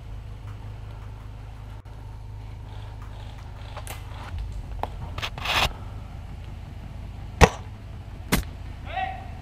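Airsoft gunfire: a few short noisy bursts in the middle, then two sharp cracks about a second apart.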